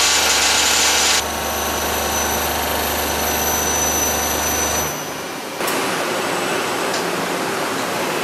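Hwacheon CUTEX-180A turning center's 50 mm live tool face-cutting carbon steel 3 mm deep: a loud steady machining noise that drops sharply about a second in and carries on softer with a thin high whine. About five seconds in it dips, and a different steady hissing machine noise takes over.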